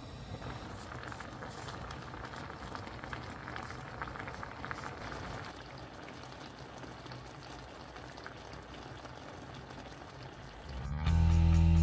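Braising liquid bubbling and crackling in a pot of spicy braised fish as the sauce reduces near the end of cooking: a fine, steady crackle of small pops that thins out after about six seconds. Music comes in about a second before the end.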